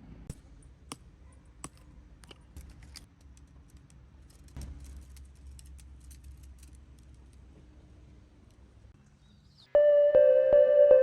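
A scattered run of light clicks and jingles over a low rumble, like small metal objects being handled. About ten seconds in, soft ambient music with long held notes starts and is much louder.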